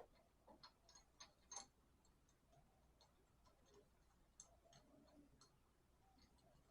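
Faint, irregular light clicks and taps of small metal engine parts being handled while fitting the connecting rods.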